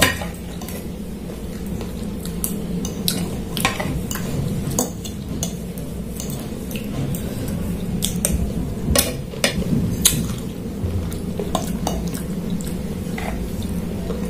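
Metal spoon and fork clinking and scraping on a ceramic plate during eating, in about a dozen scattered sharp clicks over a steady low hum.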